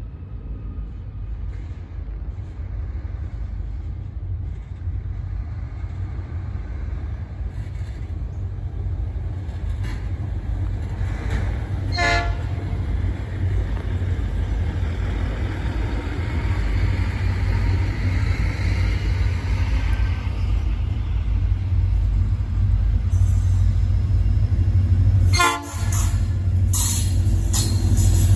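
Approaching freight train hauled by a lash-up of diesel locomotives, its deep engine rumble growing steadily louder until the lead locomotive passes close by near the end. An electric suburban railcar passes partway through. Two brief horn toots sound, one a little before the halfway point and one near the end.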